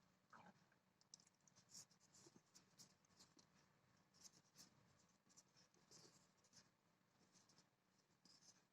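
Faint scratching and rustling of things being handled, in many short irregular strokes.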